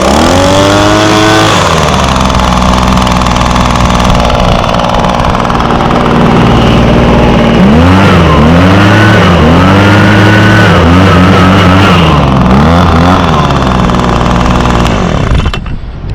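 Echo PB250 handheld leaf blower's 25.4cc two-stroke engine running, throttled up at the start, then revved up and down several times in a row near the middle. The engine stops shortly before the end.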